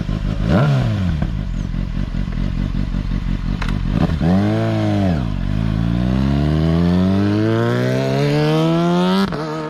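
Motorcycle engine revving hard. There is a quick rise and fall in pitch about half a second in and another around four seconds in, then a long climb in pitch that drops suddenly near the end.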